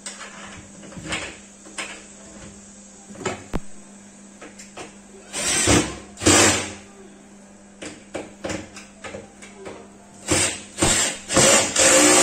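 Cordless drill-driver driving screws into steel cabinet-door hinges, running in short bursts: twice about five to six seconds in, then several times near the end. Small clicks and knocks of hands on the hinge hardware come in between.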